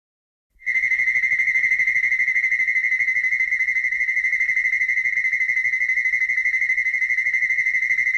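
Synthesized sci-fi sound effect: a steady, high electronic tone with a fast, even flutter over a low buzz, starting abruptly just under a second in.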